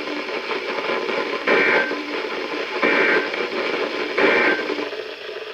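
Three short SAME end-of-message data bursts from a NOAA Weather Radio receiver, about 1.4 seconds apart, over steady radio hiss. They mark the end of the severe thunderstorm warning broadcast.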